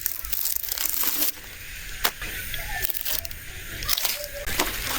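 Bark being peeled off a freshly cut hinoki log, tearing and crackling in irregular pulls with sharp snaps. The bark comes away easily because the wood is still full of sap.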